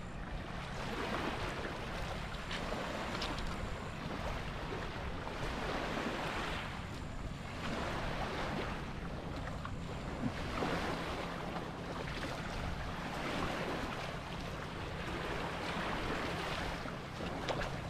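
Small lake waves lapping and washing over a pebble shore, swelling and easing every few seconds, with wind rumbling on the microphone.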